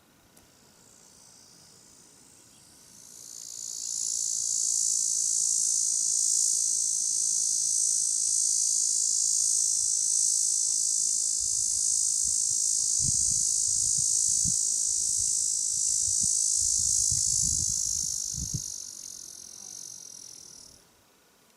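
An insect's high, shrill buzzing drone that swells up a few seconds in, holds steady for about fifteen seconds, then fades away near the end. A few low thumps sound under it in the second half.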